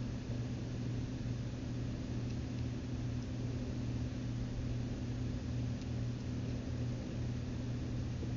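A steady low hum with an even hiss over it, unchanging throughout, and a single sharp click right at the end.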